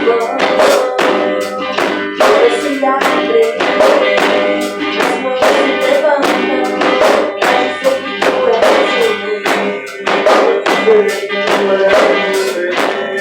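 A worship band playing in rehearsal: full band music with a steady beat.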